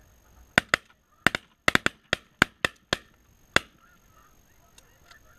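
A rapid volley of about a dozen shotgun shots over roughly three seconds, several guns firing almost on top of one another, with snow geese honking faintly behind.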